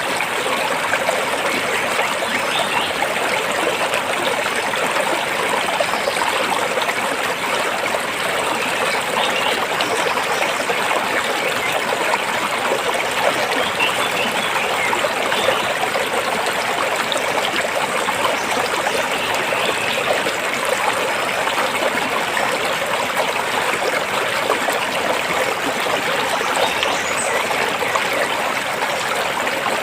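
Stream water flowing and trickling over rocks, a steady rushing with small splashes.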